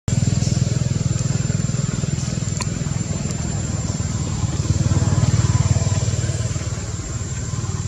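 A motor engine running steadily, a low even rumble, with a thin, steady high-pitched tone above it.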